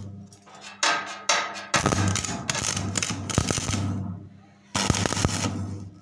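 Stick (arc) welding: the electrode's arc crackling and sputtering in three runs, each starting abruptly and fading, with a low hum under the crackle.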